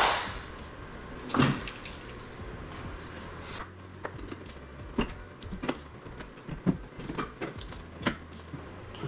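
Wooden door casing being pried loose with a hand tool: a loud knock at the start and another about a second and a half in, then a run of sharp cracks and taps as the trim comes away from the frame.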